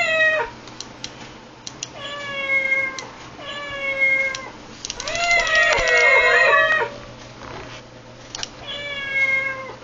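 Cat-paw sound-effect gadget playing the same recorded cat meow over and over, about every two seconds. Short clicks fall between the meows, and near the middle several meows pile up on top of one another.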